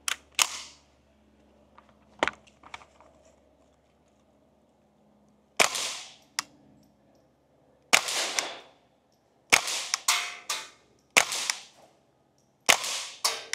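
Ruger 10/22 Takedown .22 LR rifle firing CCI subsonic rounds through a Dead Air Mask HD 22 suppressor: a string of quiet, sharp cracks with short ringing tails, one near the start and the rest every second and a half to two seconds in the second half. It is so quiet that the first shot was taken for a misfire, "stupid quiet".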